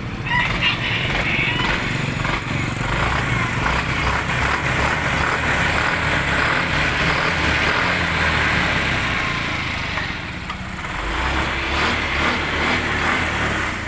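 Yamaha Mio i 125 scooter's single-cylinder engine running steadily after its no-start fault was repaired, easing off about ten seconds in and then picking up again.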